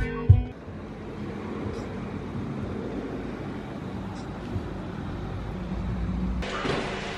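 Music cuts off at the start, leaving a steady low rumble of road and engine noise inside a moving car's cabin. Near the end a brighter hiss takes over.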